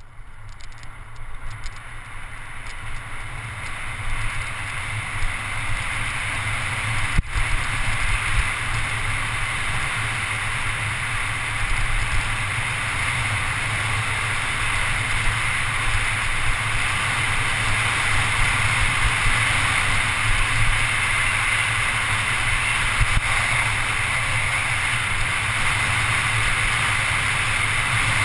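Wind rushing over a GoPro HD camera and tyres rumbling on asphalt as a Scott Scale 10 mountain bike descends a narrow paved road at speed. The rush builds over the first few seconds as the bike gathers speed, then holds steady, with a single sharp knock about seven seconds in.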